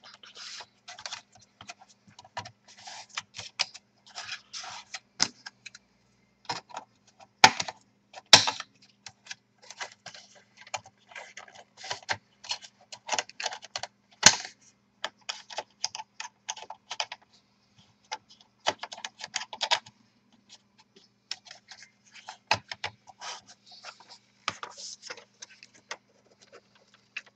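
Irregular plastic clicks, scrapes and snaps as a plastic opening tool is worked along the seam of a Toshiba Satellite C850 laptop's bottom case, prying its clips loose. A few sharp cracks stand out about a third of the way in and again about halfway.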